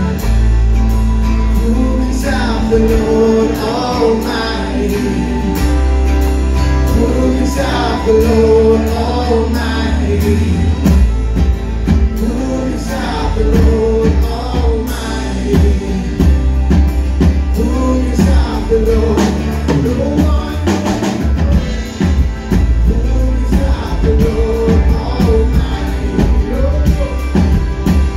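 Live worship band playing a song: a male lead singer over strummed acoustic guitar, electric guitar, keyboard and a drum kit keeping a steady beat.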